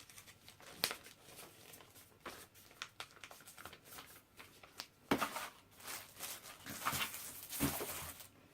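A paper poster being folded back up: irregular rustling and crinkling with small crisp taps, louder and busier from about five seconds in.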